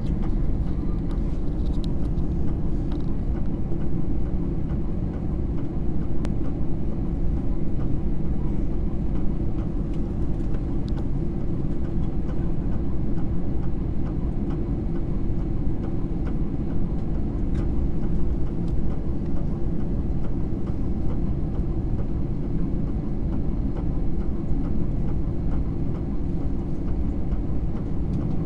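Jet airliner cabin noise at low engine power while the plane moves slowly on the runway before take-off: a steady low rumble with a few faint rattling ticks.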